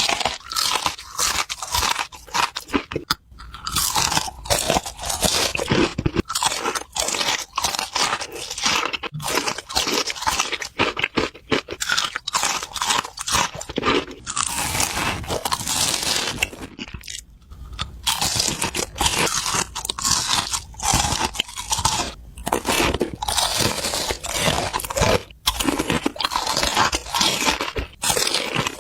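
A person chewing crunchy food: a rapid, continuous run of crunches, with short pauses about three seconds in and again near the middle.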